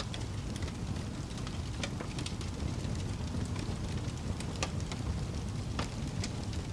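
Fire crackling: irregular sharp pops and snaps scattered over a steady low rumble of the blaze.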